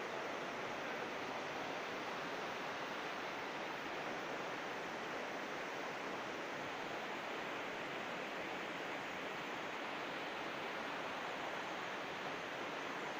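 Steady rushing of river water, an even hiss that holds at one level throughout.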